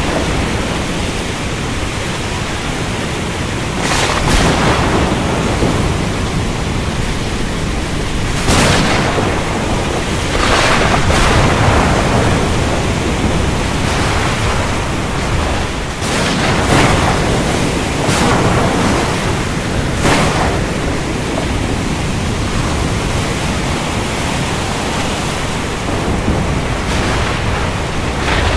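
Thunderstorm over the ocean: a steady hiss of heavy rain, broken about six times by short cracks of thunder that swell and fade.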